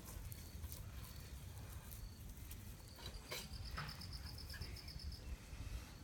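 A high, rapid chirping trill of about eight pulses a second, lasting about two seconds, starting about halfway through, with a few single faint chirps before it. A faint low rumble runs underneath.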